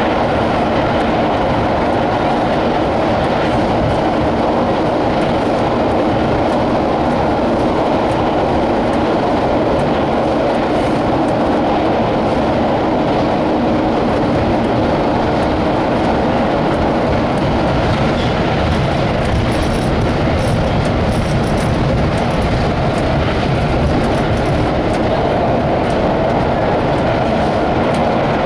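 Restored IRT low voltage (Lo-V) subway train running through the tunnel: a steady, loud rumble of wheels on rail and running gear, echoing off the tunnel walls, with brief faint high squeals about two-thirds of the way through.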